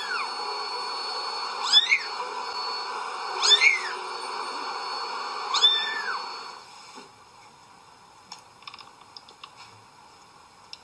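Domestic cat meowing four times, about two seconds apart, each call rising then falling, over a steady noise that cuts off about two-thirds of the way in; a few faint clicks follow.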